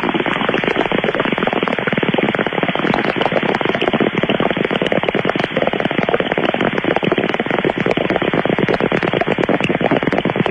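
Bong-hit sound effect: water bubbling in a bong as smoke is drawn through it, a long, dense, steady crackle of bubbles.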